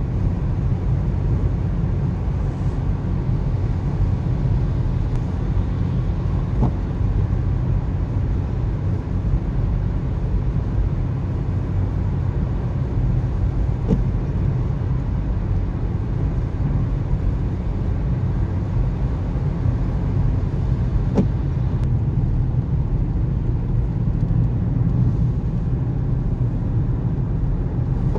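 Steady low rumble of a car's road and engine noise at motorway speed, heard from inside the cabin. A faint tick comes about every seven seconds as the intermittent windscreen wipers sweep.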